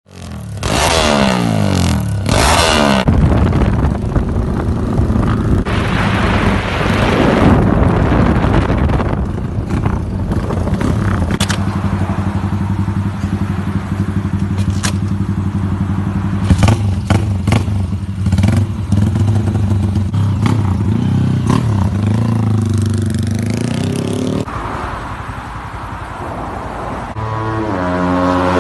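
Yamaha LC135 underbone motorcycle's single-cylinder four-stroke engine being revved in quick blips, then running steadily with a few sharp clicks. It revs up again near the end.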